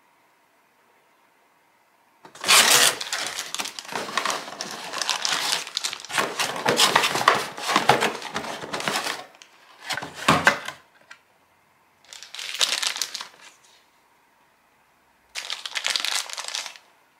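Clear plastic packaging bag crinkling as it is handled, wrapped around a camera battery: one long stretch of crinkling, then three shorter bursts.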